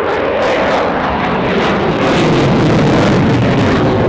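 RAF Eurofighter Typhoon's twin jet engines in full reheat, a loud crackling jet noise as the aircraft climbs into the vertical, growing louder about two seconds in.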